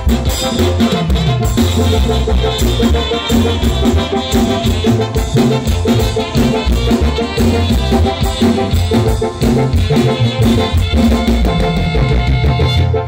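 Mexican brass-band music with drums and a steady beat, playing an instrumental passage between the sung verses of a song.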